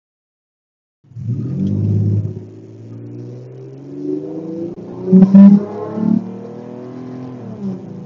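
The audio cuts out for about the first second. Then a non-supercharged 2008 Toyota FJ Cruiser's 4.0-litre V6 pulls under full throttle uphill, heard from inside the cabin, its note climbing as the speed builds. Near the end the pitch drops as the five-speed automatic shifts up.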